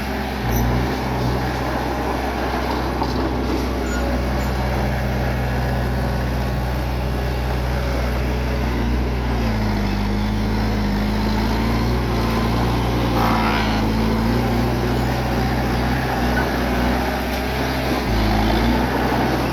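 Bulldozer's diesel engine running steadily, with a mechanical clatter over it. The engine note drops for a few seconds about halfway through, then comes back up.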